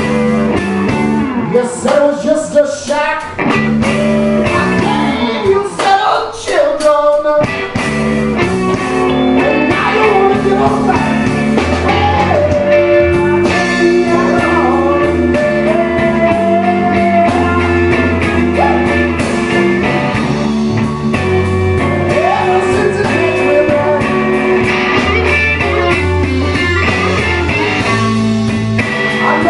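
Live blues band with electric guitars, bass guitar and drums playing a slow blues. It comes in short stabs with gaps for about the first seven seconds, then the full band plays on steadily.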